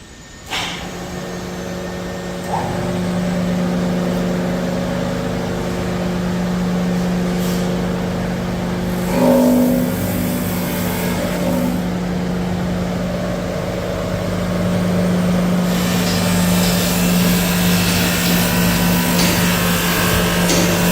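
Automatic conveyor belt grinding machine running: its electric motors hum steadily, and the hiss of the abrasive belts grinding gets louder about three-quarters of the way through.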